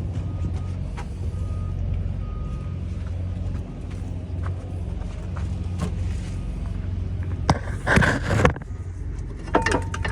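Steady low rumble of highway traffic, with a louder rushing burst about eight seconds in and a few knocks near the end.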